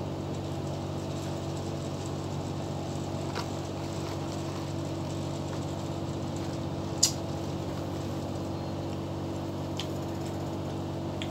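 Steady low mechanical hum under a few light clicks and taps from a hollow dark-chocolate ball being handled, the sharpest tap about seven seconds in.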